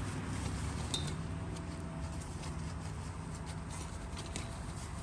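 Puppies at play: scattered light clicks and taps of paws and claws, with one brief high squeak about a second in, over a steady low hum.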